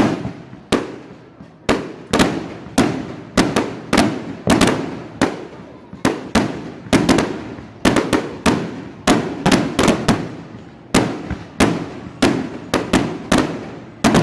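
A fireworks display going off in a rapid series of sharp bangs, about two a second, each trailing off in a brief echo.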